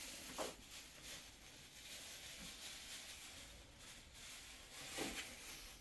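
Faint rustling of thin plastic bags and red beans being handled as the beans are bagged by hand, with a short crinkle just after the start and another near the end.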